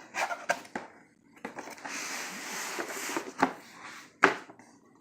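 Cardboard box being opened and handled: a few light clicks, a stretch of rustling and scraping, then two sharp knocks near the end.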